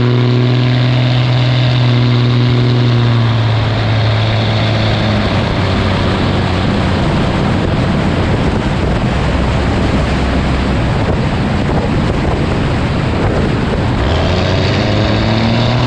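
Cummins 5.9 turbo-diesel truck engine running through a 5-inch turbo-back exhaust with no stack. A steady engine drone for the first few seconds gives way to a rushing noise with the engine tone fainter, and the drone comes back near the end.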